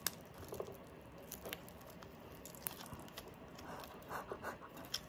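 Quiet chewing and wet mouth sounds of someone eating baked crispy pata (pork knuckle), with a few faint scattered clicks.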